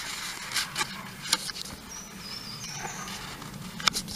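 Sheet of paper being folded and creased by hand on a table, with a few light crackles and scrapes, here the corner folds of a paper hat. A faint high wavering tone sounds for about a second, midway through.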